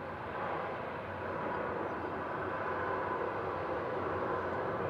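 Boeing 787-9 jet engines at taxi power, a steady rushing hum over a low rumble that grows slowly louder as the airliner rolls toward the listener.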